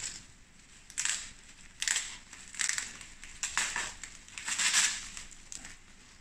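Bubble wrap and plastic sheeting crinkling in bursts about once a second as it is pulled and unwrapped by hand.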